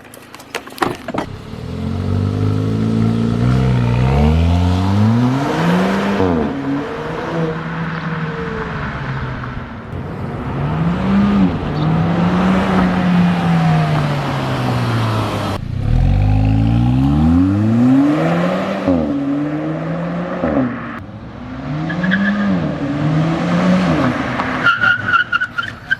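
Exhaust of a 2021 Kia Forte GT with its resonator deleted, accelerating twice through the gears of its seven-speed dual-clutch gearbox. The pitch climbs on each gear and drops at every upshift. The sound stops abruptly about halfway through and a second run starts.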